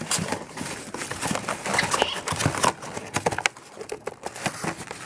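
Cardboard camera packaging being handled: a black cardboard insert and inner tray slid and pulled out of the box, giving irregular taps, knocks and scraping rustles.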